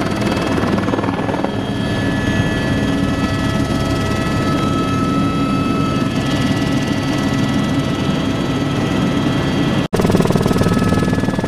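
Turbine helicopter in flight, heard from inside the cabin: a steady, loud rotor and engine noise with a high turbine whine over it. The sound drops out for an instant near the end.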